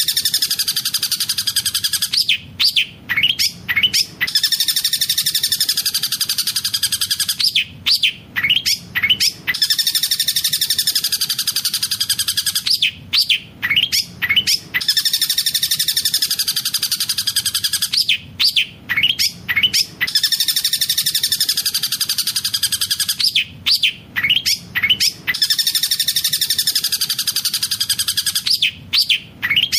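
Long-tailed shrike (cendet) song played as a looped training recording: a rapid, continuous high chatter lasting a few seconds, then a burst of four or five sharp separate calls. The cycle repeats about every five seconds.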